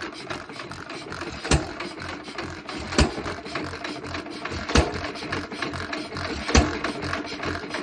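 Antique hit-and-miss engine driving an air compressor: a sharp firing bang about every one and a half to two seconds as the governor lets it fire, with steady mechanical clatter from the engine and compressor as it coasts between bangs.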